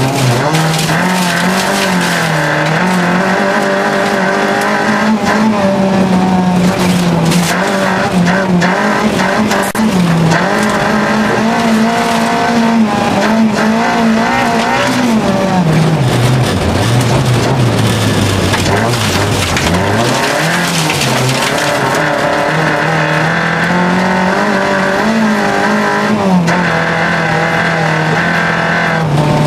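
In-car sound of a VW Golf 2.0 8-valve four-cylinder race engine driven hard at high revs. The pitch is held high for long stretches, drops sharply and climbs back twice past the halfway mark, and falls again at the end, with occasional knocks over it.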